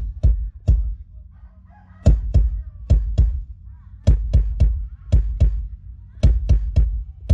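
Drum kit played through a stage PA, kick and snare hits in short runs with brief pauses, over a low steady hum; faint gliding calls sound between the hits.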